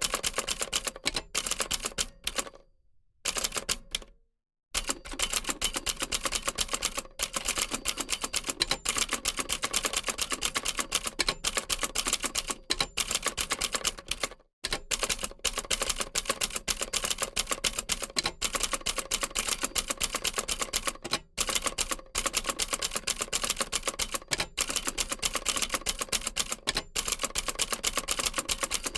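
Old typewriter typed on at speed: a rapid, continuous clatter of keystrokes, with a break of about two seconds near the start and a few short pauses.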